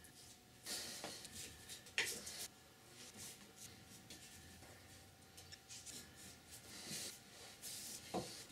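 Quiet scratchy brushing: a paintbrush working black paint onto a wooden keyboard-stand leg in short strokes, with a sharp click about two seconds in and a knock near the end.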